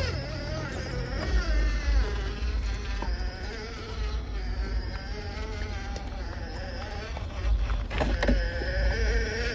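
Electric motor and drivetrain of a radio-controlled crawler truck whining, the pitch wavering up and down with the throttle. A sharp knock comes about eight seconds in.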